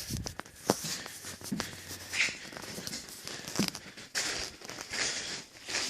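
Footsteps and scuffs on a bare construction-site floor, with scattered sharp knocks and rustling debris.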